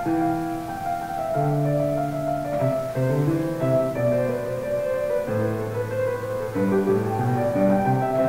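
Slow instrumental piano music: held chords changing about once a second.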